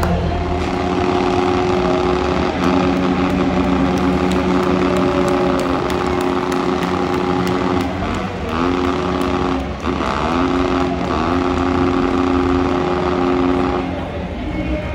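Freestyle motocross dirt bike engine held at high revs in a burnout that sends up tyre smoke. The pitch dips and climbs back up three times in the second half, then the revs drop off near the end.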